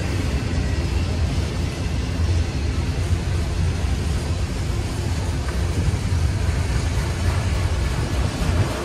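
Freight train of autorack cars rolling past as it gathers speed: a steady low rumble of steel wheels on rail.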